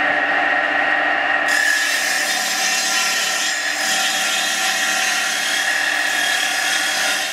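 Table saw running and ripping a wooden board into a thin strip about 3 mm thick. Its motor and blade hum steadily, and about a second and a half in the blade bites into the wood with a harsher cutting hiss. The sound carries on steadily and dies away at the very end.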